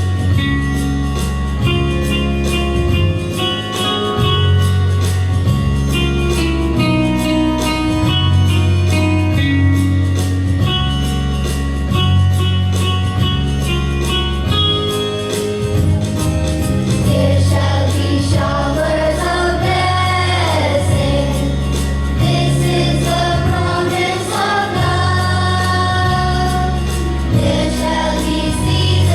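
Devotional prayer song playing. It opens as an instrumental passage with a steady repeating bass line and plucked or keyboard notes, and singing voices come in a little over halfway through.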